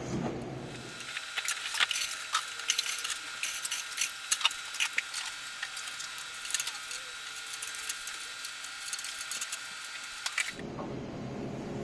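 Rapid, irregular clicking and clinking of small hard parts over a steady high-pitched whine, starting about a second in and stopping shortly before the end.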